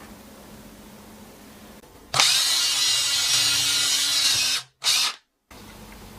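EZ6225 cordless drill-driver motor running with a steady whine for about two and a half seconds, then a brief second burst.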